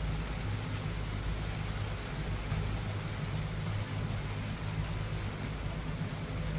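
Steady rainfall hiss with a constant low rumble underneath.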